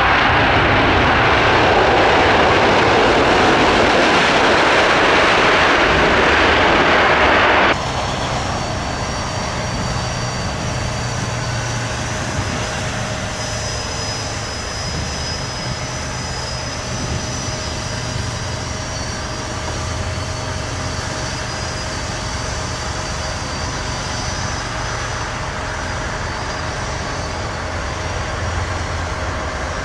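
A Boeing 747-8 freighter's four GEnx jet engines at high power on the runway, a loud steady roar. About eight seconds in, it cuts abruptly to a quieter jet aircraft whose engines give a steady high whine over a low hum.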